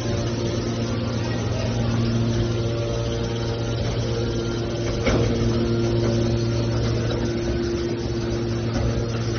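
Scrap metal baler's hydraulic power unit running with a steady hum, with a single sharp knock about five seconds in.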